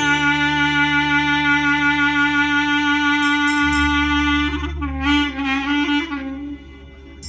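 Clarinet improvising a taqsim in Turkish Hijaz: one long held note, then a short ornamented phrase with pitch bends about five seconds in, easing off briefly near the end. Low held notes sound underneath.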